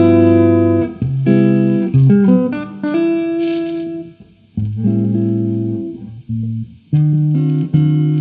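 Electric guitar played through a Marshall 5150 combo amplifier, a slow run of notes and chords each left ringing for about a second, with short breaks about four seconds in and again at six and a half seconds.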